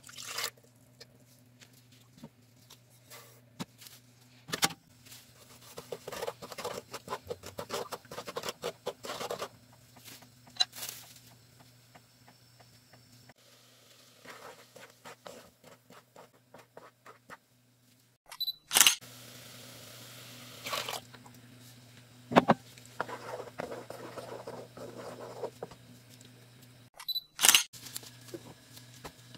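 Kitchen cooking sounds: pomegranate juice poured into a metal pot, then a utensil clinking and scraping in the pot in quick runs, over a steady low hum. Several loud, sharp clicks stand out in the second half.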